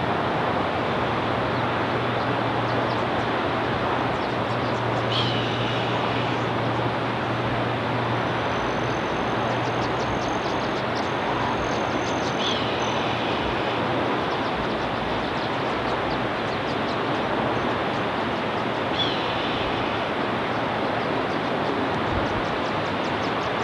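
Red-tailed hawk screaming three times, about seven seconds apart, each call about a second long and falling slightly, with a fourth starting at the very end: a female's alarm call warning an intruder away from her nest and young. A loud steady rushing noise runs under the calls.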